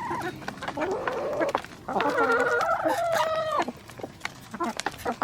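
Backyard chickens clucking, then a rooster crows once about two seconds in, a long call of under two seconds, with scattered sharp taps around it.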